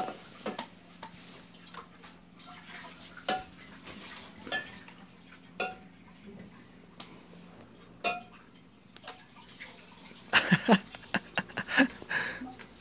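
Scattered light clicks and taps of a small dog's paws and claws on a plastic computer keyboard and its tray, with a quick flurry of clicks near the end, over a faint steady low hum.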